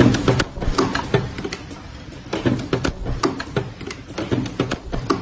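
Semi-automatic KN95 mask ear-loop spot-welding machine cycling: a quick, uneven run of sharp mechanical clicks and clacks, several a second, from its pneumatic head and loop-feed mechanism.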